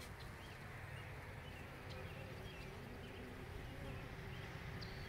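Steady hum of honeybees around an open hive.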